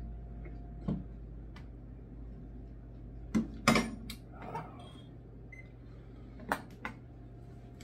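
A few short clinks and knocks of a metal spoon, a small glass hot sauce bottle and a digital kitchen timer being set down and handled on a tabletop, the loudest clink about three and a half seconds in.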